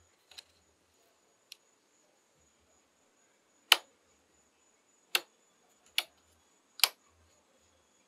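Rocker switches on a Blue Sea Systems 8-position switch panel being flipped, giving separate sharp clicks: a couple of faint ones at first, then four louder clicks over the last few seconds as circuits are switched on.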